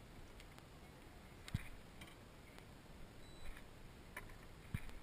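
Mostly quiet, with faint scattered clicks and two sharper knocks, about a second and a half in and near the end, from gear being handled in a small fishing boat.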